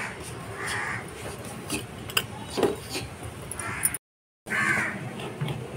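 A bird calling several times with short calls, over light clicks and rustles from hands picking oyster mushrooms out of a grow bag of dry leaves. The sound cuts out for half a second about four seconds in.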